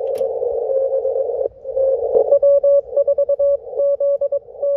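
Morse code (CW) signal received on a Yaesu HF transceiver on 20 metres, a keyed tone heard through the receiver's narrow band of hiss. It is faint under the hiss at first. After about a second and a half it comes through strong and clear as fast dits and dahs.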